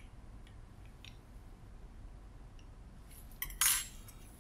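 Faint small clicks, then about three and a half seconds in a short rattle of a small spoonful of beads tipped into a plastic microcentrifuge tube.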